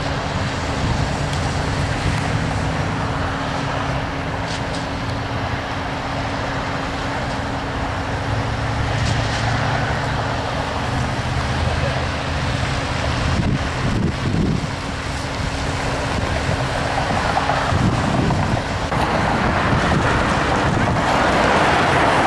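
Steady road traffic at an intersection: cars passing with a continuous rumble and tyre noise, growing louder near the end as more vehicles go by.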